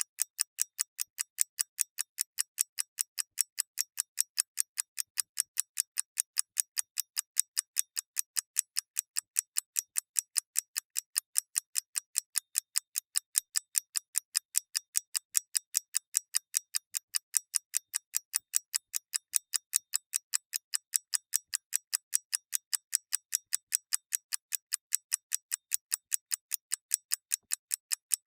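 Clock mechanism ticking in a fast, perfectly even rhythm of several sharp, high-pitched ticks a second.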